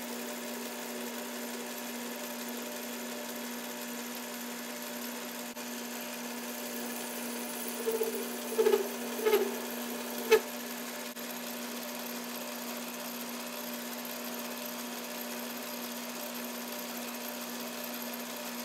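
Metal lathe running with a steady motor hum while it turns a half-inch aluminium rod. About eight to ten seconds in come a few short, louder squeals as the cutting tool bites into the aluminium, then a single sharp click.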